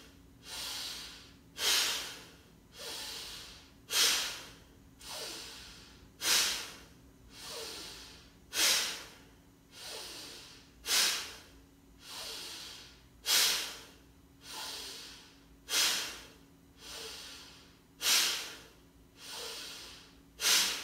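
A woman doing deep rhythmic belly breathing as a pranayama exercise. Each cycle is a short, forceful breath followed by a softer, longer one, repeating about every two and a half seconds, nine times.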